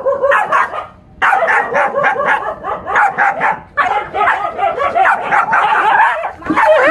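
Small black dog barking rapidly and repeatedly in quick runs of short barks, with brief pauses about a second in and near four seconds in.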